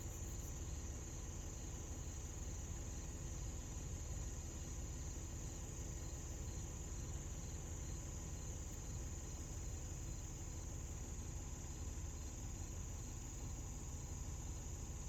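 Steady, high-pitched chorus of insects, most likely crickets, droning without a break over a low rumble.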